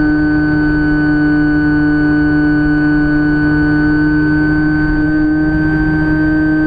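Electric pusher motor and propeller of a Phantom FX-61 flying wing in flight, a steady high whine with a rumble of wind against the camera beneath it.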